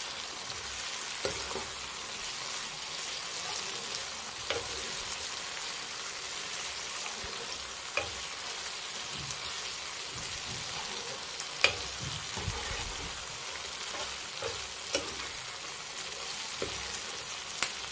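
Chicken, mushroom and capsicum sizzling in oil in a non-stick pan, with the liquid cooked down and the oil coming out at the end of frying. A metal spatula stirs it, scraping and clicking against the pan every few seconds.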